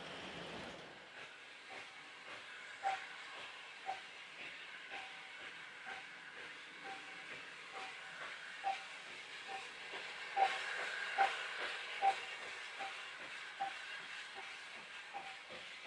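Distant Austerity 0-6-0 saddle tank steam locomotive working a train away. Its exhaust beats come over a steady hiss, about one a second at first and quickening as the train picks up speed.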